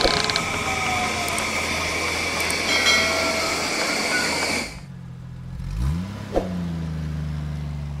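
Sound effect of a train passing, a steady rushing rumble with a few high squealing tones, which stops about two thirds of the way in. Then a bus engine starts, rises in pitch with a click, and settles into a steady low idle.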